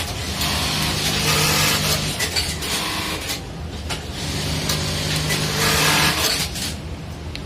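Electronic button-sewing machine (model 1903) running two stitching cycles a few seconds apart: each a burst of rapid stitching over a steady motor hum, with clicks in the quieter pauses between.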